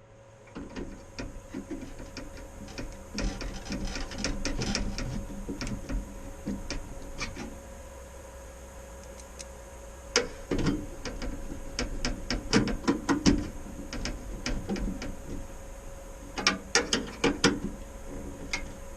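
Clicks, knocks and light metallic rattling from hands working inside a desktop PC case while fitting a graphics card, coming in clusters of quick clicks.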